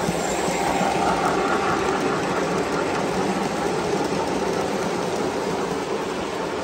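O gauge model steam locomotive and hopper cars rolling past on three-rail track, a steady mechanical running noise of motor and wheels.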